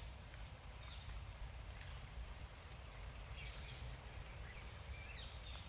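Quiet woodland ambience: a steady soft hiss with a few faint, distant bird chirps.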